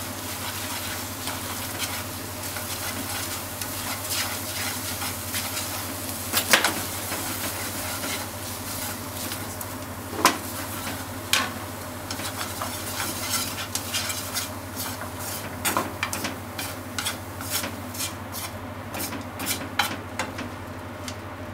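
Wiener sausage, onion and egg sizzling in a nonstick frying pan as they are stir-fried, with chopsticks clicking and scraping against the pan and a few louder knocks. The sizzle dies down near the end.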